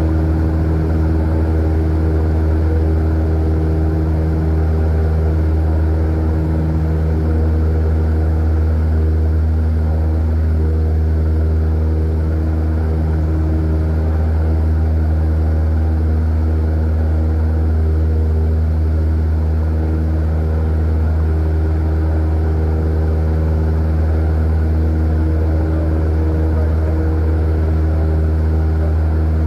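Cessna 172's piston engine and propeller at takeoff power, heard from inside the cabin: a loud, steady drone with a strong low hum and a stack of overtones, unchanging through the takeoff and climb-out.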